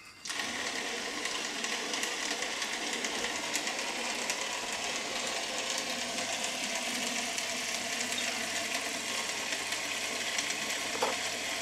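Small shop-made sanding station running, starting up just after the beginning and carrying on at a steady, even pitch, with a short squeak near the end.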